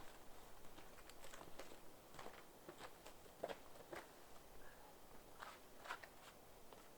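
Faint footsteps crunching in snow, a dozen or so soft irregular steps with a short pause between about four and five and a half seconds in.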